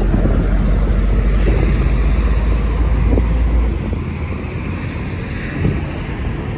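Wind buffeting the microphone: a heavy low rumble under a steady rushing hiss. The rumble eases off a little under four seconds in.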